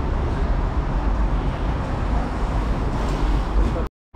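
City street traffic noise: a steady rumble of passing cars and other vehicles. It cuts out completely for a moment near the end.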